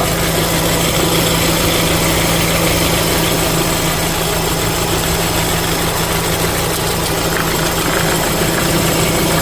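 Renault Fluence M4R engine idling steadily with the air conditioning on, carrying a low growl from a faulty accessory-belt tensioner. The noise is typical of a cold engine at around 1000 rpm.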